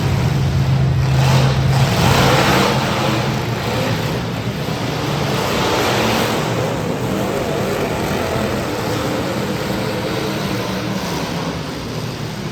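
Demolition derby cars' engines running and revving, with swells of louder engine noise about two seconds in and again around six seconds.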